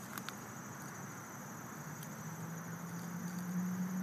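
Insects chirring steadily in a high, even pulse. A low hum comes in about two seconds in and grows louder.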